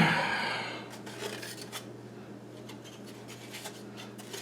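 Hands handling small parts inside a refrigerator ice dispenser while fitting a micro switch: a brief scraping rub at the start, then faint scattered clicks and taps over a low steady hum.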